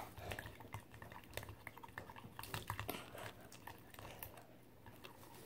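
A spoon stirring glue and liquid laundry detergent together into slime in a bowl: faint, irregular small clicks and scrapes.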